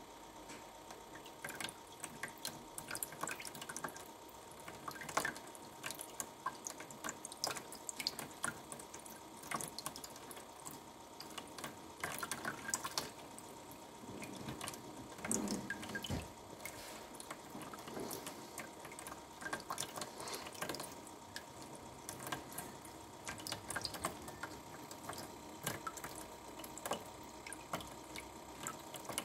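Water dripping and splashing irregularly into a plastic tub fed by hoses, small sharp drops at uneven intervals, with a faint steady tone underneath.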